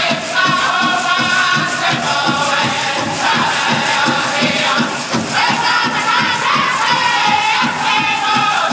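Powwow drum group singing a jingle dress song in high, wavering voices together, over a steady beat on the big drum.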